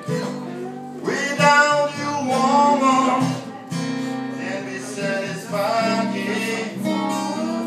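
Blues music: an acoustic guitar strummed, with a voice singing over it in phrases.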